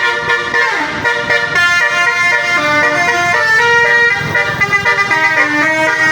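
Basuri telolet horn, an Indonesian multi-tone musical air horn, playing a quick melody: several notes sound at once and change every fraction of a second.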